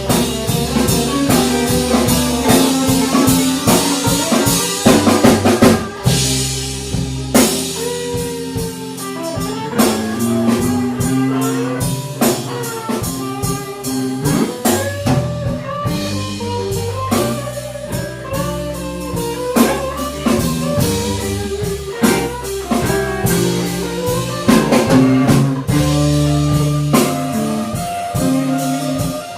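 Live blues band playing an instrumental break: a lead electric guitar with bent notes over drum kit and bass guitar.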